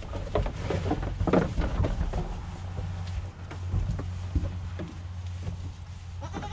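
Goats jostling and feeding at a wooden feeder trough: scattered short knocks and rustles, busiest in the first couple of seconds, over a low steady rumble.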